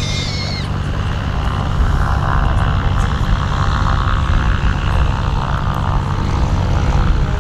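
Piper PA-28 light single-engine aircraft, its piston engine and propeller running steadily, growing a little louder about two seconds in.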